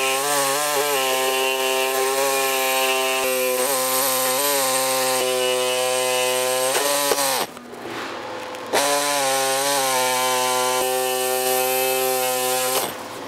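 Handheld air saw running steadily as its blade cuts through soft snowmobile body-panel plastic, with a hiss of exhaust air. Its pitch dips briefly each time the blade bites. It stops about seven seconds in and starts again a second or so later.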